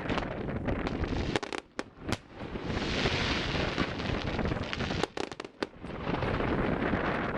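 Fireworks display: rumbling bursts and dense crackling, with clusters of sharp cracks about a second and a half in and again around five seconds.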